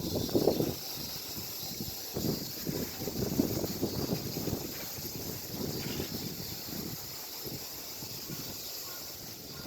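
Strong wind buffeting the microphone in irregular gusts, a low rumble that swells and drops, over a steady high hiss.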